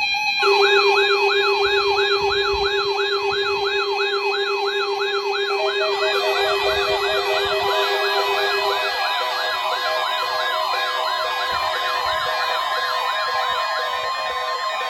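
Weather radio receivers sounding their alert alarms together, set off by the NOAA Weather Radio weekly test signal. A siren-like warble sweeps up and down about two and a half times a second over steady tones, and a second warbling alarm joins about five and a half seconds in.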